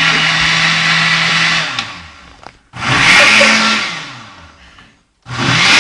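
Electric blender motor running steadily on cheesecake batter, then switched off and winding down. It is pulsed on again about three seconds in and dies away, then pulsed once more near the end.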